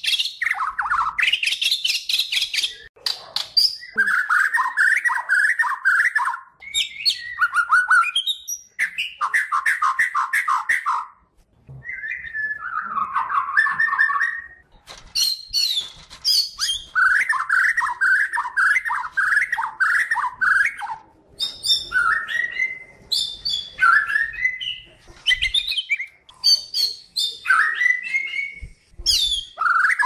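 White-crowned shama (the Bornean murai batu) singing continuously: phrases of quick, rapidly repeated chattering notes alternate with clear whistles that slide upward, with short pauses between phrases.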